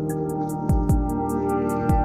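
Ambient background music: held synth tones over a quick, steady ticking beat, with two low drum hits.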